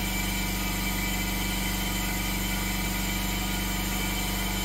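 Steady mechanical hum of a machine running in the background, an even drone with no change in pitch or level.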